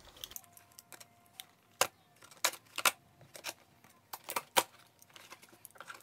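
Folding knife slitting packing tape on a cardboard box: a scatter of sharp clicks and scrapes, loudest between about two and five seconds in.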